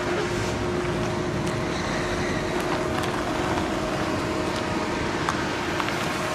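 A car engine running steadily, a low even hum over street traffic noise, with a few faint clicks.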